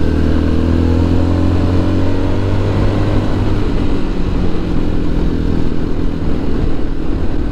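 Motorcycle engine running on the move, its note easing slightly lower over the first few seconds, then mixed into a steady rushing noise from about halfway through.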